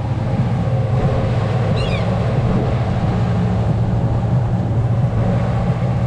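Boat engine running steadily with a constant low drone. One brief high chirp about two seconds in.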